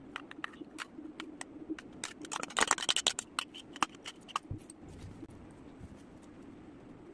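Kitchen utensils and dishes clicking and clinking as they are handled, with a dense flurry of taps and a short scrape about two and a half seconds in, over a steady low hum.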